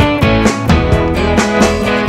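Background music: a rock track with guitar over a steady drum beat.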